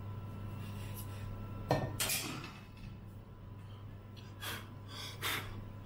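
Perforated sheet-metal RF shield from a Commodore 128D clinking as it is handled and set down on a desk: a sharp knock and short clatter about two seconds in, then two softer clinks near the end, over a steady low hum.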